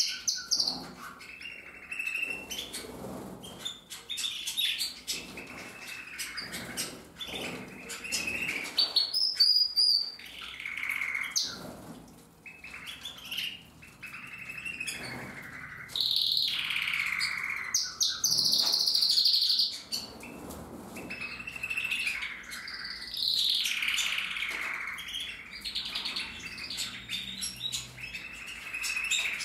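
Canaries singing: long, running phrases of trills and chirps, loudest about two-thirds of the way through.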